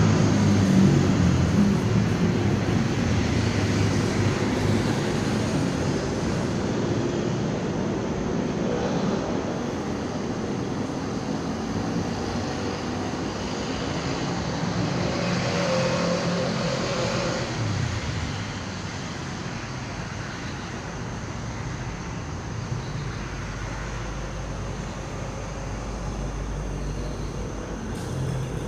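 Steady road traffic noise, a continuous rumble and hiss from the surrounding city, with music fading out in the first moment.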